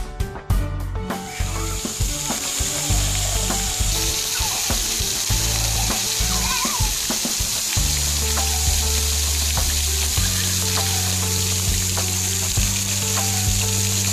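Steady hiss of splash-pad fountain jets spraying water onto wet pavement, starting about a second in, over background music that holds low sustained notes.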